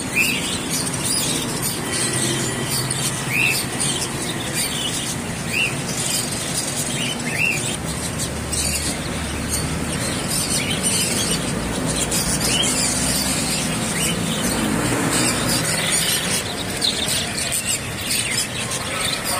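Many caged birds chirping, with short high squealing calls every couple of seconds over a steady background noise.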